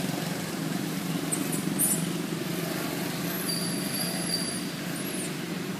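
Steady low hum of a running engine, with a few faint high chirps about three to five seconds in.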